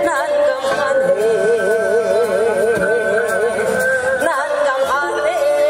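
A female singer singing long held notes with a wide, slow vibrato into a microphone, over an amplified backing track played through stage loudspeakers.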